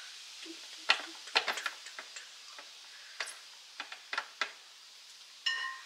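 Kitchen utensils and pans being handled: scattered light clicks and knocks at irregular intervals, with a short metallic ring near the end.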